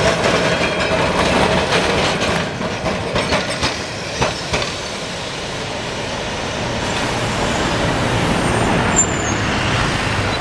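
A 1928 Peter Witt-type Milan tramcar (a 'Ventotto') running on street track. For the first four and a half seconds its wheels clatter and click over the rail joints and crossings of a junction; after that comes a steadier rumble of the tram rolling along the street.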